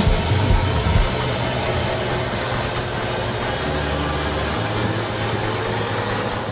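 Pilatus PC-7's PT6A turboprop heard from inside the cockpit as the trainer rolls on the ground: a steady engine and propeller noise with a thin, high turbine whine that rises slowly in pitch.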